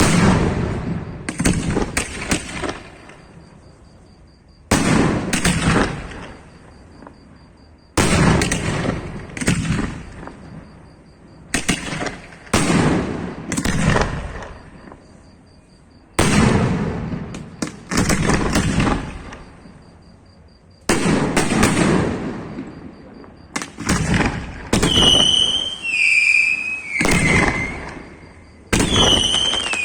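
Aerial fireworks bursting in volleys every few seconds, each sharp bang trailing off over a second or two. Near the end, whistling fireworks join in, several whistles sliding down in pitch.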